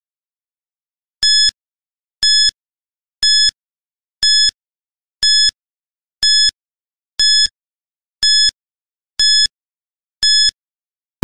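Countdown timer beeping, ten short high electronic beeps, one a second, starting about a second in, as the seconds for answering count down.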